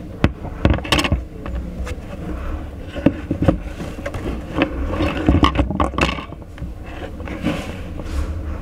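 Irregular clicks, knocks and scrapes of parts being handled and fitted together by hand, over a steady low hum.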